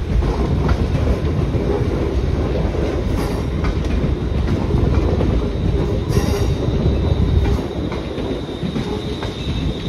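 A ScotRail Class 385 electric multiple unit running past, its wheels rumbling and clicking over the rail joints. A thin, steady wheel squeal sets in about two-thirds of the way through.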